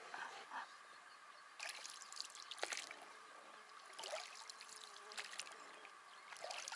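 Oars of a small inflatable boat dipping and pulling through the river, faint splashes and drips in strokes about every two seconds.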